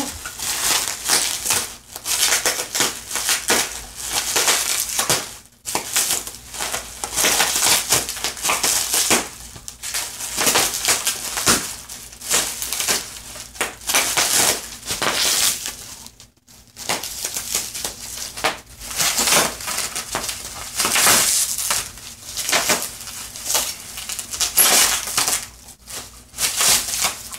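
Plastic bubble wrap crinkling and popping as a border collie bites and tugs at it, a near-continuous run of sharp pops and crackles with only brief pauses.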